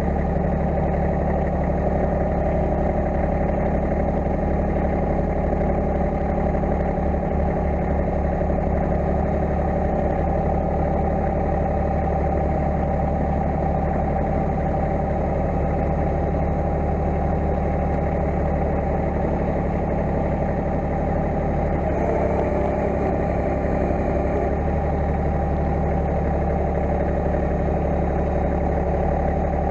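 Massey Ferguson GC1720 compact tractor's diesel engine running steadily under the front loader as it lifts a round hay bale. Its note changes a little about twenty-two seconds in.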